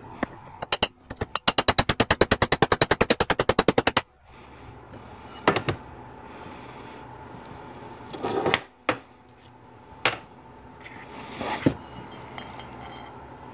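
A quick, even run of light hammer taps on a screwdriver, driving the old bushing out of a GM 4L60E transmission pump body; it stops suddenly about four seconds in. It is followed by a few separate metal knocks and clunks as the aluminium pump body and tools are handled and set down.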